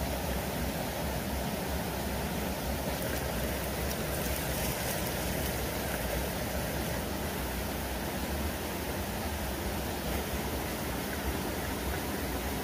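Steady rushing of flowing stream water, an even noise that does not change.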